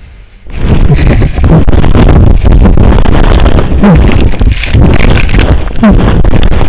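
Snow-slope avalanche heard from inside as it sweeps the climber down: a sudden, very loud rushing noise of tumbling snow battering the microphone, starting about half a second in and overloading the recording.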